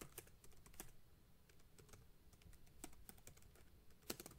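Faint typing on a computer keyboard: a run of quick, irregular keystrokes, with a couple of louder key presses about four seconds in.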